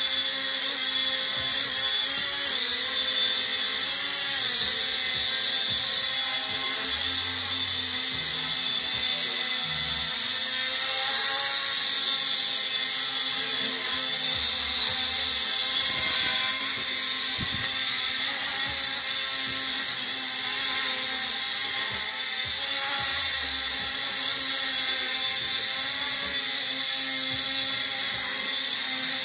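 Small toy quadcopter drone's propellers whining steadily in flight, the pitch wavering briefly a few seconds in.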